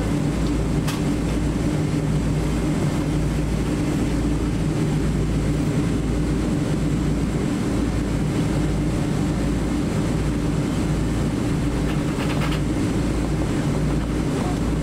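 Steady low cabin rumble of a Boeing 777-300ER taxiing, its GE90 engines running at taxi power, heard from inside the passenger cabin. A faint click comes about a second in and a few more near the end.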